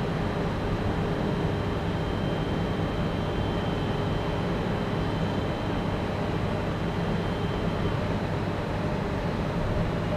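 Electric locomotive hauling an InterCity train on its approach into the station: a steady low rumble and hum, with a faint high whine over it.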